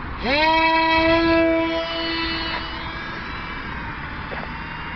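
ElectraFun XP2 RC plane's electric motor and propeller spinning up to full throttle for a hand launch. The whine rises quickly in pitch about a quarter second in, holds steady, then fades gradually as the plane flies off.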